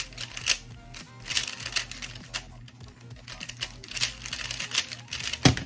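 A loose, non-magnetic budget 3x3 speed cube being turned fast during a solve: rapid, irregular plastic clicking and clacking of the layers. A louder knock comes near the end.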